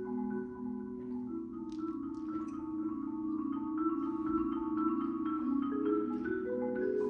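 Mallet percussion ensemble led by marimbas playing a fast, steady pattern of repeated struck notes over ringing chords.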